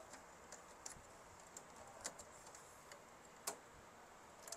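A few faint, scattered clicks of plastic as fingers unhook the feeder roller and work it off its shaft inside a laser printer, the clearest about three and a half seconds in; otherwise near silence.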